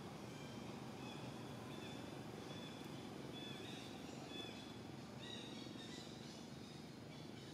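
Birds chirping: short, high, whistly notes, several every second, over a faint steady outdoor background hum.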